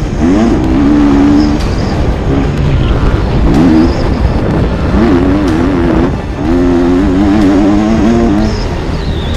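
Motocross bike engine at race pace, its pitch sweeping up sharply several times as the throttle is opened and wavering as the bike crosses rough ground. It is heard from the rider's helmet-mounted camera.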